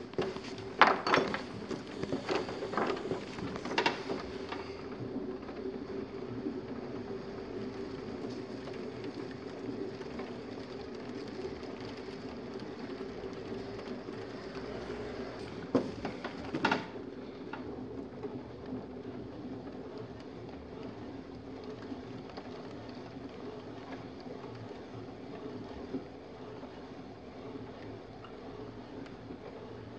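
Electric potter's wheel running with a steady hum while a metal trimming tool scrapes the leather-hard clay of a bowl turning on it. A few sharp knocks come in the first few seconds and two more near the middle.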